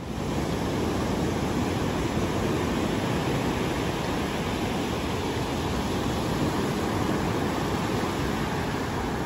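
Sea surf breaking and washing up a sandy shore: a steady, even rush of waves.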